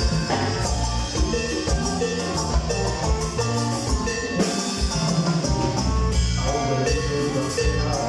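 Live band playing an instrumental passage with accordion, congas, drum kit and guitars, with no singing.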